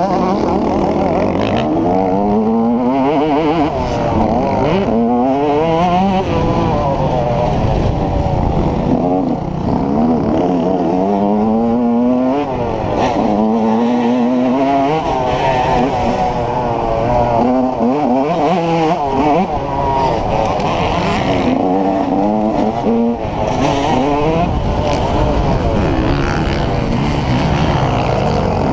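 Yamaha YZ125 two-stroke motocross engine revving hard and shifting up, its pitch climbing in sweep after sweep and dropping back between gears, heard close up from the rider's helmet.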